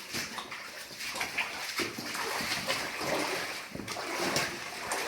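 Footsteps splashing and sloshing through shallow cave-stream water, in irregular steps.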